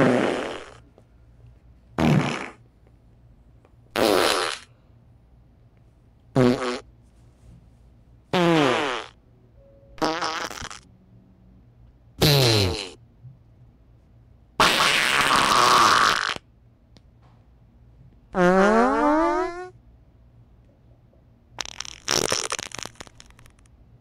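A string of separate fart sound effects, about one every two seconds, each roughly a second long. One around the middle runs about two seconds, one rises in pitch, and a sputtering, broken-up one comes near the end.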